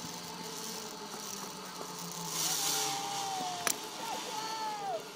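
Zipline trolley pulleys running along the steel cable, a thin whine that falls in pitch toward the end as the rider slows, over a hiss of wind on the microphone. A single sharp click about three and a half seconds in.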